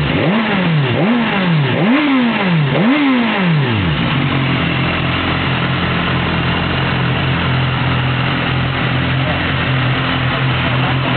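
BMW S1000RR inline-four sport-bike engine revved four times in quick succession, the pitch rising and falling with each blip, then settling into a steady idle about four seconds in.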